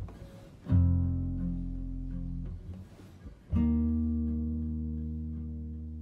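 Background music: guitar chords, one struck just under a second in and another about halfway through, each left to ring and slowly fade.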